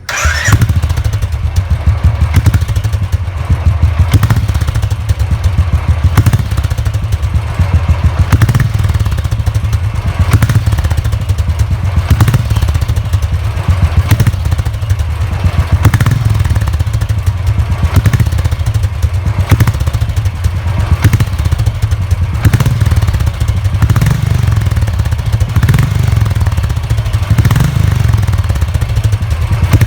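Royal Enfield Bullet's single-cylinder engine idling with a steady, even thump through an aftermarket Gold Star silencer packed with glass wool.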